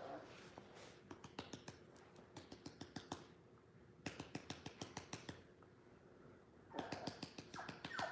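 Fingers tapping lightly on a laminate floor in three quick runs of clicks, about five a second. A puppy whimpers briefly near the end.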